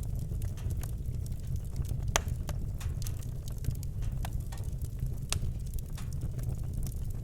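Fire burning in a fireplace: a steady low roar of the flames with irregular sharp crackles and pops, the loudest pop about two seconds in.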